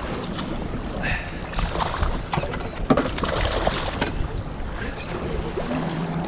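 Wind on the microphone and water sounds aboard a small open boat at sea, with a few sharp knocks between about one and a half and three seconds in.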